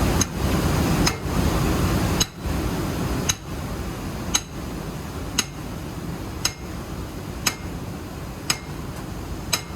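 Steady machine hum with a sharp click repeating evenly about once a second; the hum drops in level a little over two seconds in while the clicks go on.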